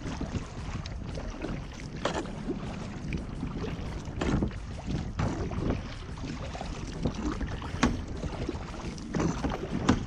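Kayak paddle strokes dipping and splashing in floodwater, a stroke every second or two, over a steady low rumble.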